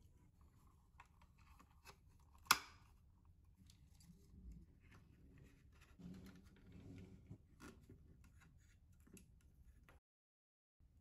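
Faint handling noise of plastic parts and a small circuit board being fitted into a toy turntable's plastic housing: scattered light clicks and rustles, with one sharp click about two and a half seconds in. The sound drops out completely for most of a second near the end.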